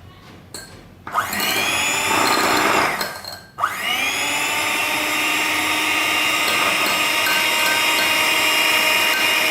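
Electric hand mixer (egg beater) switched on about a second in, its motor whining up to speed as it beats a bowl of melted beeswax, coconut oil and shea butter. It stops for a moment near three seconds, then starts again and runs steadily.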